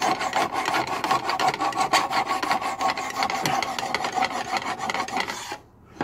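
Steel hand file rasping in quick back-and-forth strokes across a hardened, tempered knife blade made from a lawn mower blade, cutting the edge bevel in a filing jig. The filing stops near the end.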